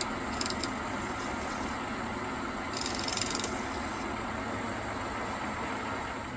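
Warco 250V metal lathe running steadily, its motor giving a constant hum with a thin high whine. A couple of light clicks come about half a second in, and a brief rougher, scratchier patch follows about three seconds in.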